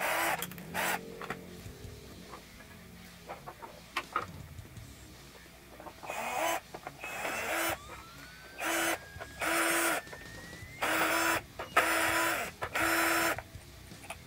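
Power drill-driver backing out the screws of a miter saw's motor housing, running in a series of short bursts with a steady whine, most of them in the second half.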